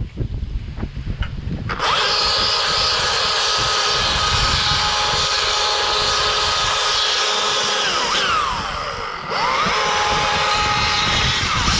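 Chainsaw running hard at high revs, with wind rumble on the microphone before it cuts in about two seconds in. Near the nine-second mark the engine speed sags and the pitch slides down, then it picks up again to full speed.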